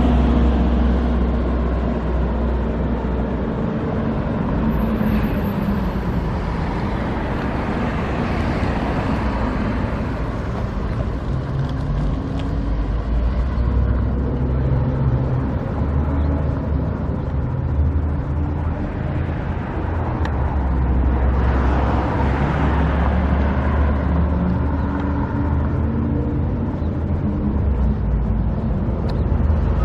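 Road traffic: a steady low rumble with engines passing by, their pitch rising and falling, louder twice as vehicles go past.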